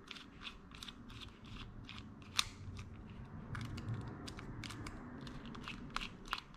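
Precision screwdriver backing out a tiny screw from the side cover of a Shimano SLX BFS casting reel: a faint run of small, irregular metal clicks, about three a second, with one sharper click about two and a half seconds in.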